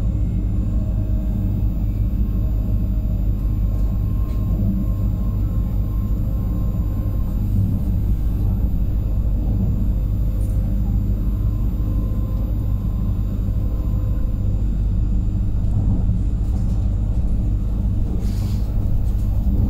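Pesa Elf 27WE electric multiple unit running, a steady low rumble with faint whining tones that come and go.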